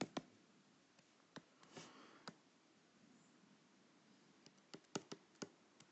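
Faint, scattered clicks and taps of a stylus on a pen tablet while words are handwritten: a few near the start and about two seconds in, then a quicker run in the last second and a half, over near-silent room tone.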